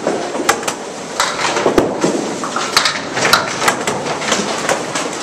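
Candlepin bowling alley din: irregular sharp knocks and clatter of balls and wooden pins from several lanes, over a steady background noise of the hall.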